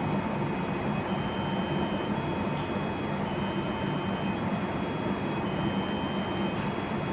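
Steady whirring machine noise with a low hum, and faint high-pitched tones that switch on and off every second or so.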